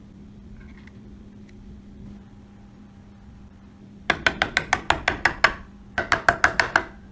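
Rapid hammer taps on metal in two quick runs, each strike ringing: about nine taps, a short pause, then a faster run of about eight. A low steady hum sits underneath.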